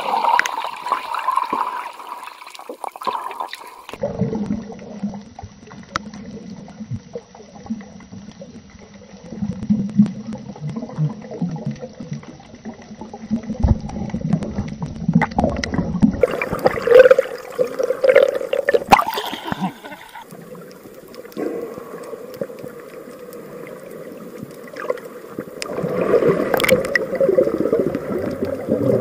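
Sea water heard underwater: a muffled, low rushing with gurgling, and louder stretches of bubbling and sloshing about halfway through and near the end.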